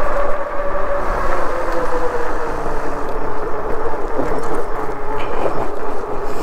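Himiway Zebra fat-tire e-bike riding along: a steady whine from its 750 W rear hub motor and fat tires that slides slowly down in pitch as the bike slows a little, over wind rumbling on the microphone.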